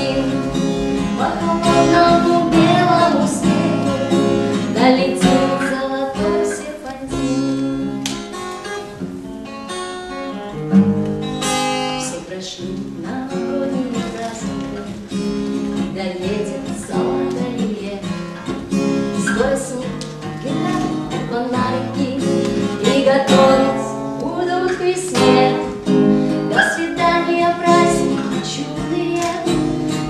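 A woman singing a song while strumming a steel-string acoustic guitar.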